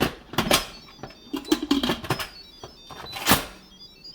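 Instant Pot lid clattering and clunking as it is set on the pot and twisted shut, with one loud clunk about three seconds in. A short series of electronic chime tones plays in the second half.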